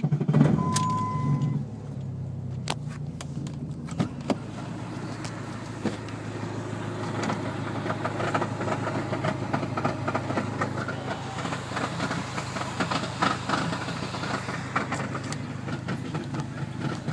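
Dodge SRT-4's turbocharged four-cylinder starting with a loud flare in the first second or so, then running steadily with the grinding noise it has had since fourth gear was forced in.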